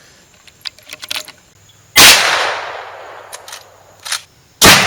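Two shots from a .357 Magnum lever-action carbine, a Marlin 1894C, fired about two and a half seconds apart, each followed by a long fading echo. Faint clicks come before and between the shots.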